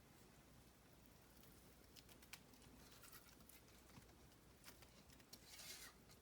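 Near silence with a few faint light clicks and a soft scrape near the end: a utensil working the hot butter-and-brown-sugar caramel out of the saucepan onto the crackers.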